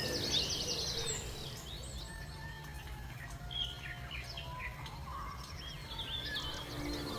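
Several small birds chirping in short, high notes scattered throughout, over a low steady background rumble.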